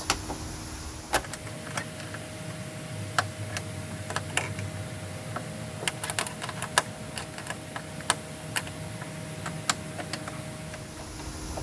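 Irregular sharp metallic clicks and taps of a 12 mm wrench working loose the mounting bolt of a hatchback trunk gas shock, with a faint steady tone behind.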